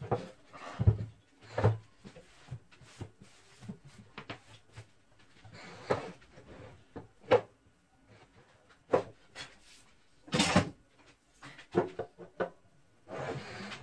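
Irregular knocks and clunks of objects being handled and set down, with a few short scraping or rubbing stretches; the loudest knock comes a little past two-thirds of the way through.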